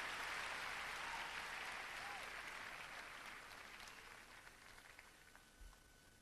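Audience applause dying away, thinning to a few scattered claps near the end.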